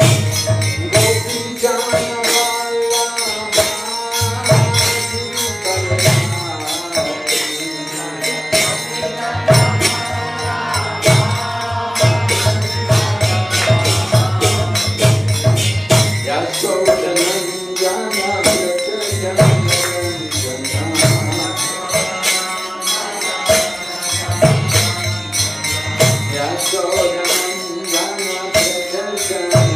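Devotional kirtan chant: a voice singing a melody over karatalas (small brass hand cymbals) struck in a quick, steady rhythm, with a low beat recurring underneath.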